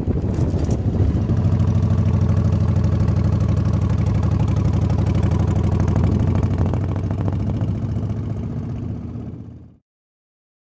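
Motorcycle engine running at a steady cruising speed, heard from on the bike; the sound fades out near the end and stops.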